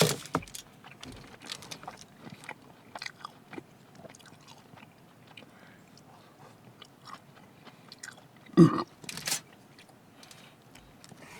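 A person chewing food close to the microphone, with small irregular wet clicks and crunches. About eight and a half seconds in there is one louder short burst of noise.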